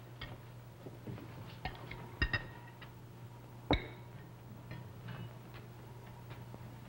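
Cutlery clinking against china plates and dishes at a supper table: scattered, irregular light clinks, with one sharper clink and a brief ring about halfway through. A steady low hum runs underneath.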